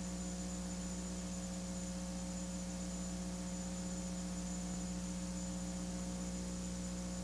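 Steady electrical mains hum, a low buzzing tone with higher overtones, over a faint even hiss.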